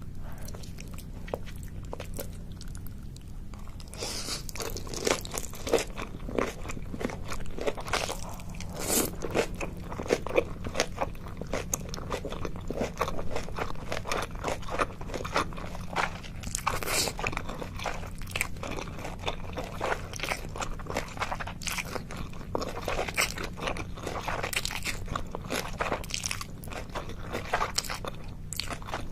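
Close-miked crunching and chewing of food, the mouth sounds of eating, quieter for the first few seconds and then dense and crackly, over a faint steady low hum.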